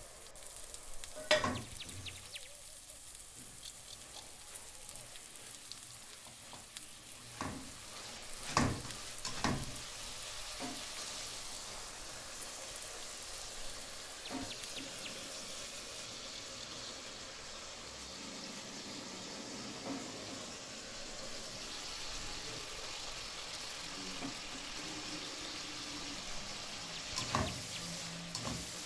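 Chicken frying in oil in a non-stick wok, a steady sizzle that grows fuller in the second half as shredded vegetables are stir-fried over high heat. A few sharp knocks of utensils against the pan come around the first ten seconds and again near the end.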